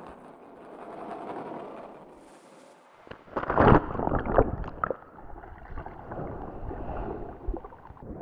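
Sound-designed effects for an animated title sequence: a soft swell of noise, a brief near-pause, then a sudden loud noisy burst with several sharp clicks about three and a half seconds in, settling into a lower steady noise with scattered clicks.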